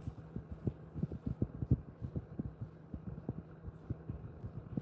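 A dog licking and nibbling at its hind leg: a quick, irregular run of soft low thumps, several a second, over a steady low hum.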